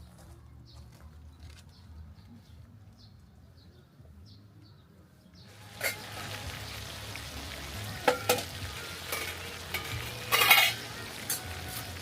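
Food sizzling in a hot pan, starting suddenly about halfway through, with several sharp clinks and scrapes of a utensil against the pan, the loudest near the end.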